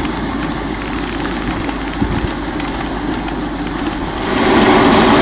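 Military truck's engine running as the truck drives slowly toward the microphone, growing louder about four seconds in as it comes close.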